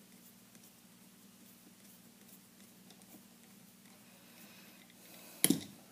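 Faint clicking of a parallel-blade screwdriver turning out the grip screw of a Smith & Wesson Model 500 revolver, over a steady low hum. Near the end comes a single sharp double knock.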